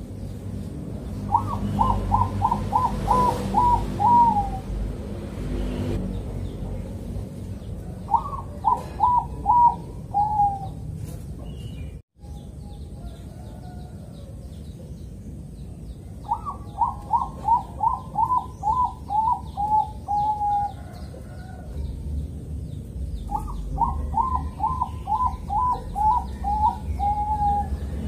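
Bangkok-type zebra dove (perkutut) cooing in four phrases, each a quick run of short notes that drop slightly in pitch at the end, with pauses of a few seconds between phrases.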